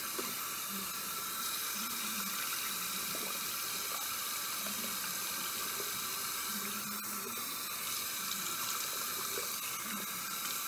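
Bathroom sink tap running steadily, with water splashed onto a face to rinse it.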